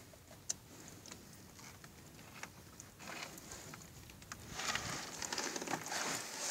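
Wet fish, gilthead sea bream and dentex, being shifted and handled on a boat's fibreglass deck: soft scattered taps and slaps, with a low hiss in the second half.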